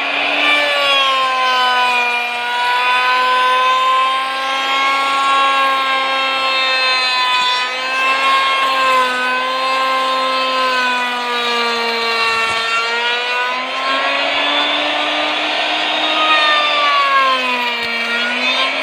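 Mailtank electric wood router running at full speed and cutting along a wooden board: a loud, steady high motor whine over the noise of the bit in the wood. Its pitch wavers and sags briefly as the bit takes load, most deeply near the end.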